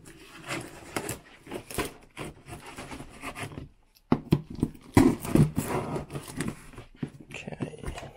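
Knife cutting and scraping through the packing tape and cardboard of a large shipping box in short, irregular strokes, with a brief pause about four seconds in and louder strokes after it.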